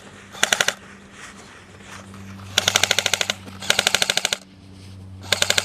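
Airsoft guns firing on full auto in rapid bursts of about fifteen shots a second: a short burst near the start, then three longer bursts of under a second each.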